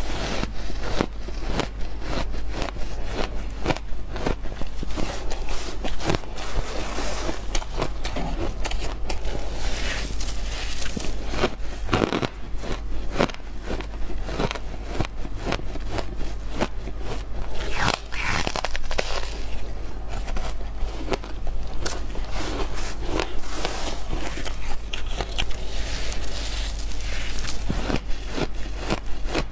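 Refrozen shaved ice being bitten and chewed, a dense run of crisp crunches and crackles.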